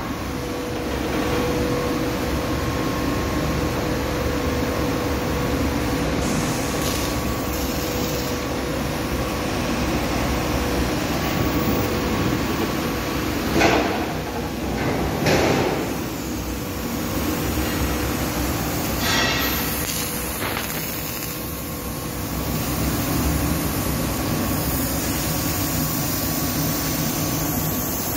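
Steady workshop machinery noise with a steady hum that fades out around the middle, broken by two sharp knocks about halfway through.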